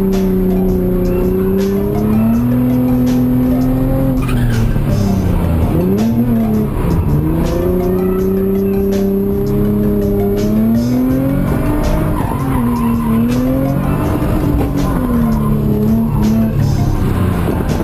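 Nissan 350Z's V6 engine held high in the revs with the tyres squealing as the car slides. The revs dip and climb several times, most sharply around six and seven seconds in.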